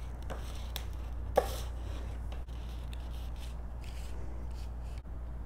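Paper-handling sounds: a small hand tool and fingers rubbing and scraping over cardstock as glued card layers are pressed flush, with one sharp tap about a second and a half in, over a steady low hum.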